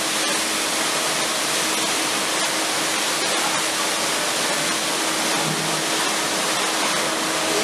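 Water hose spraying hard onto a wet stone-paved alley, a loud steady rushing hiss, with a faint steady hum underneath.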